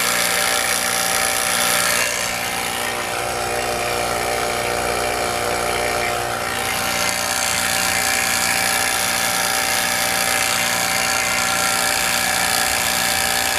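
HVAC vacuum pump running steadily, pulling a vacuum on an air conditioner's refrigerant system.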